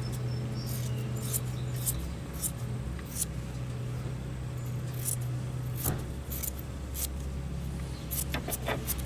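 Fiberglass patch material being handled and placed by hand: short, crisp rustles and clicks at irregular intervals, thickening near the end, over a steady low hum.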